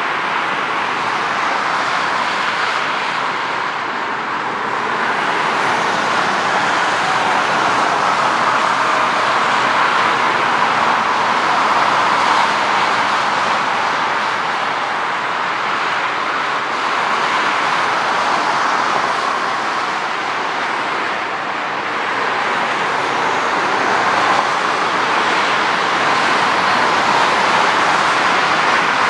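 Avro RJ100's four Honeywell LF507 turbofans at take-off power during the take-off roll: a steady jet roar that swells and eases slowly.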